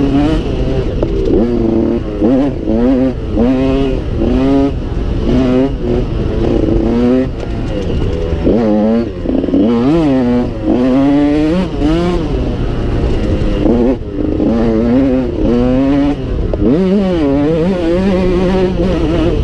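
Dirt bike engine being ridden hard off-road, revving up and dropping back over and over as the throttle opens and closes and the gears change, with a low rumble of wind on the helmet-mounted microphone.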